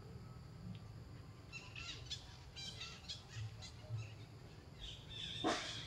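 Small birds chirping in a quick cluster of short, high calls, then a single sharper, louder call or crack near the end.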